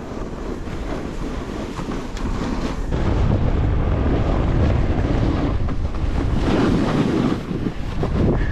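Wind rushing over a moving camera's microphone as a snowboard slides down groomed snow, growing louder and heavier from about three seconds in.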